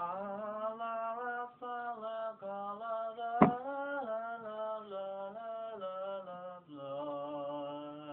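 A single voice singing a slow melody in long held notes that step from pitch to pitch, with a sharp click a little over three seconds in. The melody drops lower about two-thirds of the way through.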